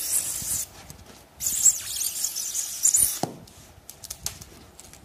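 Hand-held PI cutter blade slicing through a foil-faced pre-insulated duct panel, a hissy scrape in two strokes. The second stroke ends about three seconds in with a short squeak falling in pitch, followed by a few light clicks.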